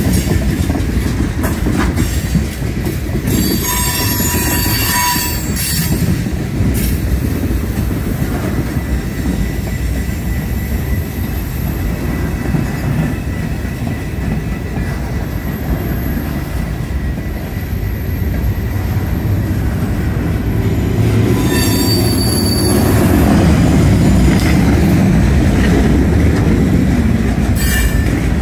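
Train rolling past on the rails: a steady rumble of cars, with brief high-pitched wheel squeals a few seconds in and again about three-quarters of the way through. It grows louder near the end.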